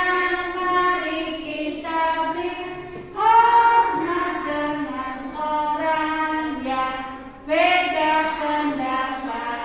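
Children singing a slow song in long held notes. New phrases start about three seconds in and again about seven and a half seconds in.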